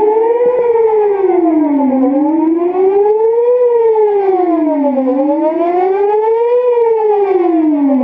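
Whelen WPS 4008 electronic outdoor warning siren sounding a wail during a tornado siren test, its pitch sweeping up and down about every three seconds.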